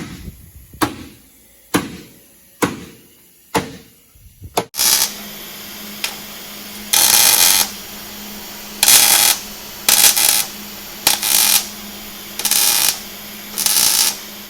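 Sharp metal knocks ring out about once a second, five or six in a row, from work on a C5 Corvette's steel frame. After an abrupt change, a steady hum is broken by six short hissing bursts of shop tool work on the frame, each under a second long.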